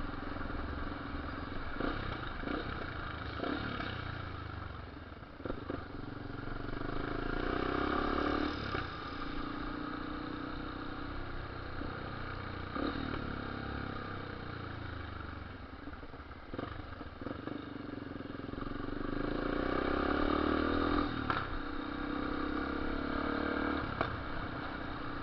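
Yamaha Lander 250's single-cylinder engine running through an aftermarket ProTorque 788 exhaust while riding, with the engine note rising twice under acceleration. A few short sharp cracks come from the exhaust around gear changes: the fuel-injected bike pops and backfires since this exhaust was fitted.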